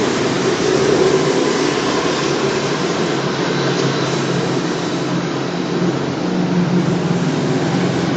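DJI Mavic 2 Zoom drone's four propellers and motors running on a test flight, a steady buzzing hum with a wavering pitch.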